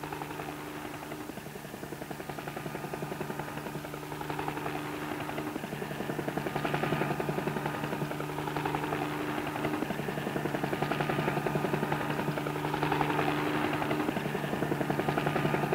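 Bell 47G-3 helicopter's piston engine and main rotor running with a fast, steady beat, growing louder over the first few seconds as the helicopter lifts off into a low hover.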